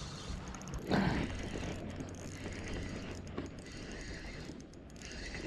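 Fishing reel being cranked in, a fast mechanical clicking, with a louder knock about a second in.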